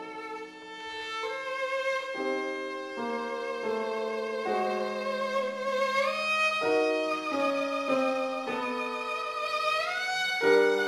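Live violin and grand piano playing together. The violin holds long notes with vibrato and slides upward twice, around the middle and near the end, over piano chords that change every second or so.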